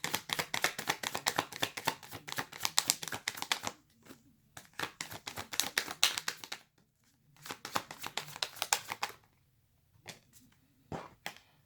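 A deck of tarot cards being shuffled by hand in three runs of rapid flicking, followed by a few separate card clicks near the end.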